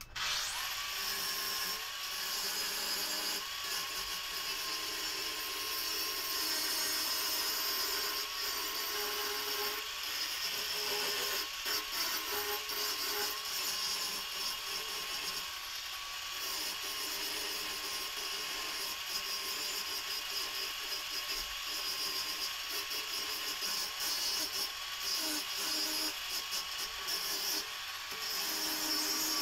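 Angle grinder grinding a spring-steel kukri blade cut from an old leaf spring: a steady grinding hiss with a motor whine that wavers slightly as the disc is pressed into the steel.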